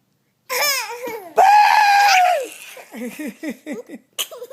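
A toddler's loud, high-pitched squeal of laughter, held for about a second and then falling away into short giggles, with a sudden yell just before the squeal.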